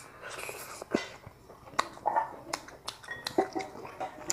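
Close-up eating sounds: chewing with wet mouth smacks, and a dozen or so sharp clicks as wooden chopsticks tap and scrape rice from a ceramic bowl.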